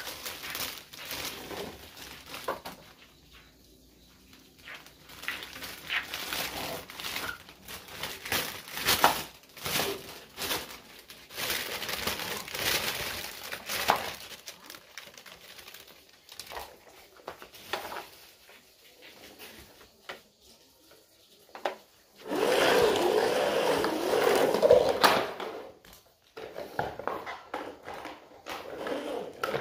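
Crinkling of a clear plastic bag with clicks and knocks of a plastic toy excavator truck being unwrapped and handled. A louder continuous noise lasts about three seconds near the end.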